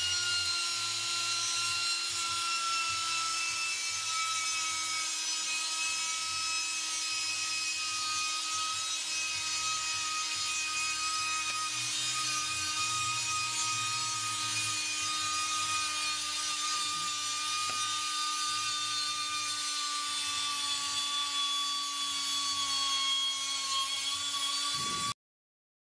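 Steady mechanical whine made of several tones that drift slowly lower in pitch, over a rasping hiss. It cuts off abruptly near the end.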